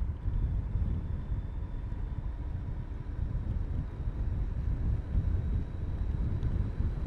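Riding on a motorbike: wind buffeting the microphone over a dense low rumble, with a faint thin steady whine above it.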